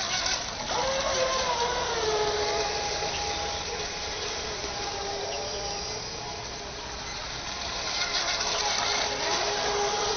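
Small RC speedboat running fast across the water: a high motor whine that shifts in pitch as the throttle changes, over the hiss of its spray. The whine grows louder again near the end as the boat passes close.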